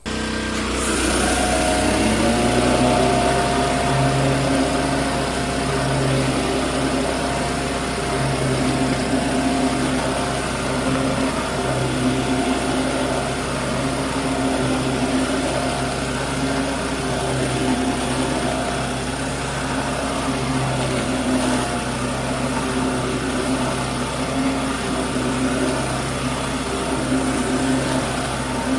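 Generac pressure washer's engine running at a steady speed, with the hiss of the high-pressure water spray; the engine note settles in over the first couple of seconds.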